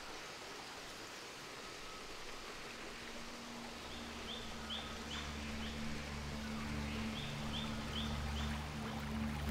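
Rainforest ambience: a steady wash of running-stream noise with a bird calling in two runs of four short high chirps, about four seconds in and again near the end. A low droning film score fades in from about three seconds and slowly swells.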